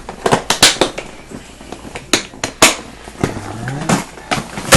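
Plastic tackle boxes being handled: an irregular run of about ten sharp clicks and clacks as boxes and lids knock together.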